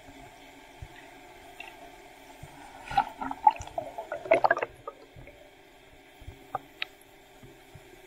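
Underwater sound heard through a waterproof camera housing: a steady faint hiss, a dense burst of rapid clicks and crackles for about two seconds in the middle, and two sharp clicks near the end.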